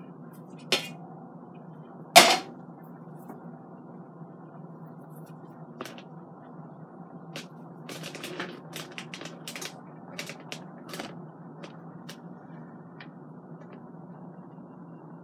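A spoon knocking and scraping against the stainless steel inner pot of an Instant Pot as chili is stirred: one sharp knock about two seconds in, then a run of light clicks and scrapes, over a steady low hum.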